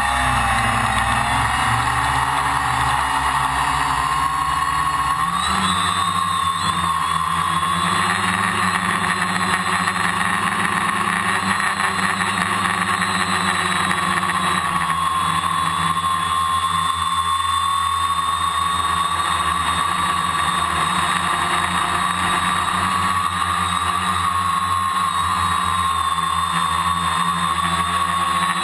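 Multirotor drone's electric motors and propellers, heard from its onboard camera. The pitch rises over the first five seconds or so as it lifts off, then holds steady as it flies.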